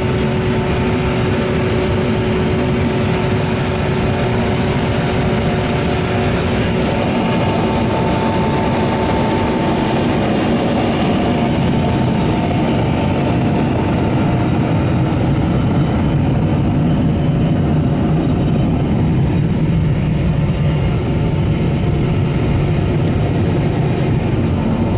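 PDQ MaxAir car-wash dryer blowers running, a loud steady rush of air with a steady fan whine.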